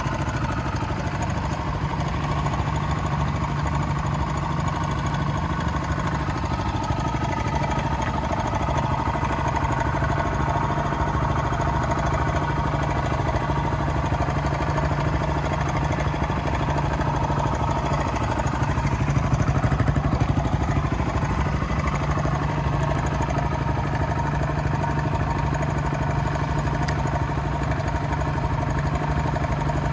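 Kawasaki KLX125's single-cylinder four-stroke engine idling steadily, with a slight rise in loudness about two-thirds of the way through.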